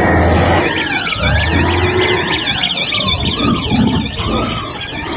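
Siren wails with slow rising and falling pitch, joined about a second in by a fast warbling tone that lasts about three seconds, over a steady low rumble.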